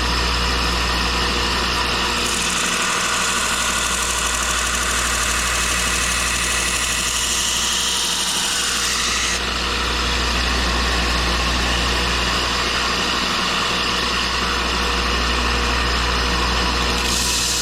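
Belt grinder running steadily while the steel edge of a survival knife is rough-ground against the belt to thin it, the grinding hiss shifting a few times as the blade is pressed and moved.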